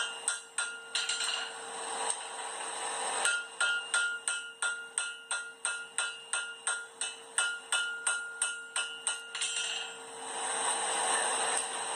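Hand hammer riveting a pair of blacksmith's tongs on the anvil: quick, evenly spaced ringing blows, about three a second. They break off about a second in, resume for about six seconds, then stop near the end, giving way to a steady rushing noise.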